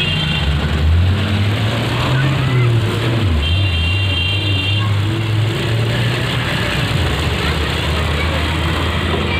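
Street traffic noise with a motor vehicle engine running nearby, a low hum that wavers in pitch. About three and a half seconds in a high, steady tone sounds for about a second.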